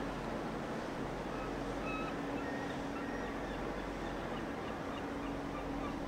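Steady low rumble and drone of the laker American Spirit's engines as the 1000-foot freighter passes close by, over a steady hiss. Short bird calls sound from about a second and a half in.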